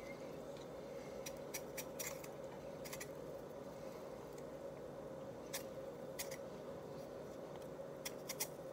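Hand-held vegetable peeler scraping skin off a potato: faint, short, irregular strokes over a steady low hum.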